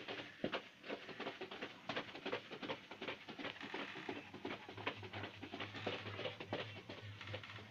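German Shorthaired Pointer panting hard with its mouth open: a fast, uneven run of short breathy huffs.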